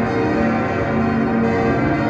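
Several church bells ringing together in a continuous peal, their tones overlapping without a break.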